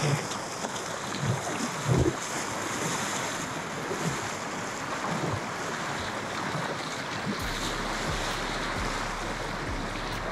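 Shallow surf washing and breaking steadily around the legs of someone standing in the water. Wind buffets the microphone in gusts, loudest about two seconds in.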